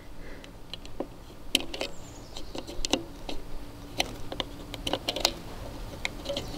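9mm cartridges being pressed one by one into a Mec-Gar pistol magazine for a Springfield Armory SA-35: a series of irregular small metallic clicks.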